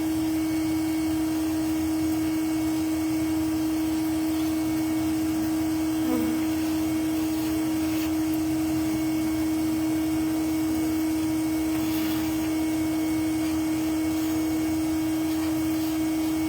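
Steady machine hum with one constant low tone, holding unchanged throughout.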